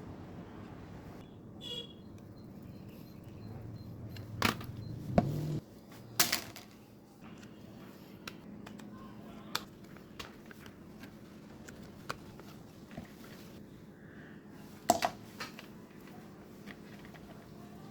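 Scattered clicks and knocks from small parts and tools being handled during a mini ceiling fan repair, over a low steady hum. The loudest knocks come around a third of the way in and again near the end.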